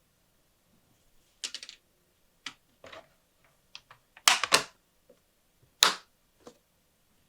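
Lofree Wanderfree keyboard keys clicking in a few scattered, irregular keystrokes rather than steady typing. The loudest clacks come as a close pair about four and a half seconds in and a single clack just before six seconds.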